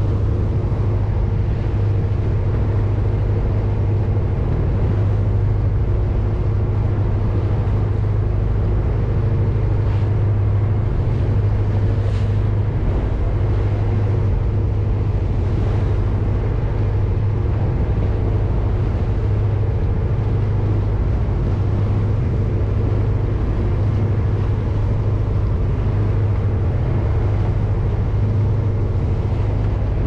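A boat's engine running steadily with a low, even drone.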